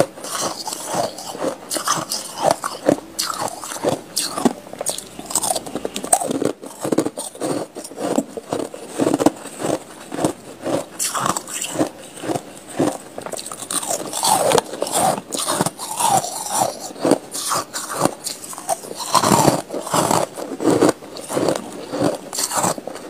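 Close-up biting and chewing of clumps of soft white frost ice, a rapid, irregular run of crisp crunches throughout.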